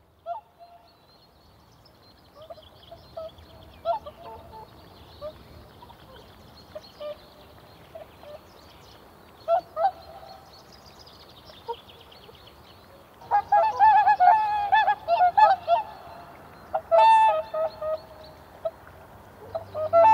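A flock of swans calling on the water, many short honking calls overlapping. The calls are scattered and fainter at first, then grow louder and denser about two-thirds of the way in.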